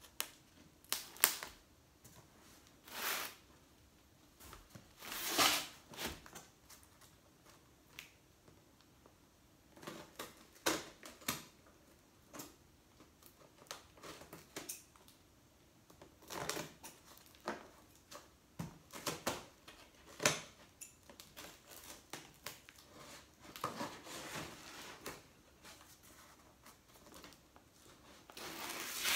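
Scissors cutting the packing tape on a cardboard box, with cardboard scraping and knocking as the box is handled. Irregular clicks and short rasps, with louder scrapes about five seconds in and near the end.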